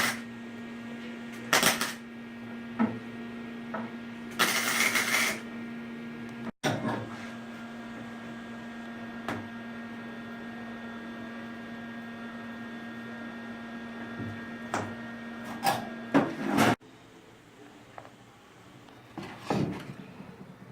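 A steady machine hum, holding one pitch, with short scrapes and knocks at intervals; the longest scrape comes about five seconds in. The hum stops about three-quarters of the way through, leaving only a few faint knocks.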